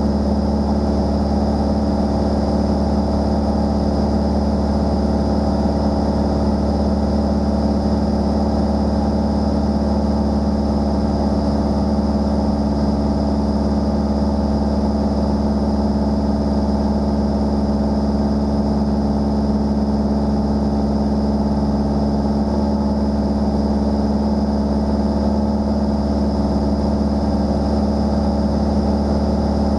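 Single-engine light airplane's engine and propeller running steadily in cruise, an even, unchanging drone heard from inside the cockpit.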